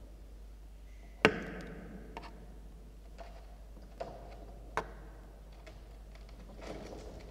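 Knocks and taps inside a wooden nest box with a gravel floor, made by a peregrine falcon chick moving and flapping right beside the microphone. One loud, sharp knock comes about a second in, then a few softer taps.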